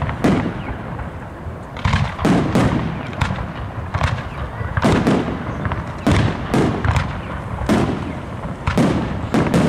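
Aerial firework shells bursting in a rapid barrage, a dozen or more booms at irregular intervals with a low rumbling echo between them.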